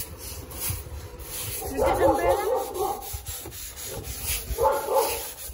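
Hand brush scrubbing the side of a pickup truck in repeated quick strokes, with two short wavering whining calls about two and five seconds in.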